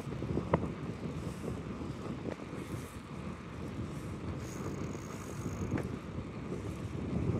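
Wind buffeting the microphone of a camera carried on a moving bicycle, an uneven low rushing and fluttering, with a couple of faint ticks.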